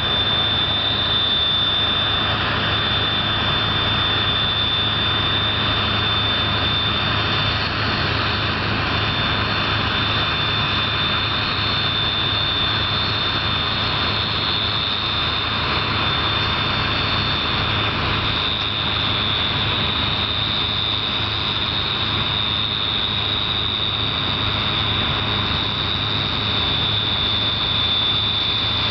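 Combine harvester running steadily under load, its engine noise carrying a constant high-pitched whine over a low hum.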